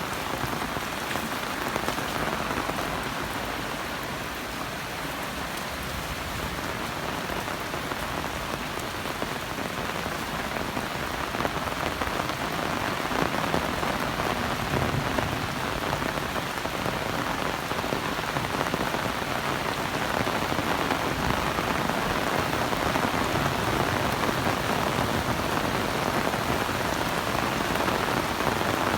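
Heavy rain falling steadily, growing a little louder in the second half.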